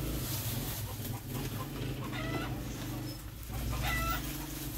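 Chickens clucking, with short calls about two seconds in and again near the end, over a steady low hum.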